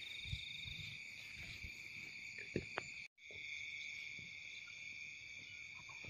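Steady chorus of night insects such as crickets, a constant high-pitched trilling hum. A couple of faint taps come just before the sound drops out for an instant about three seconds in.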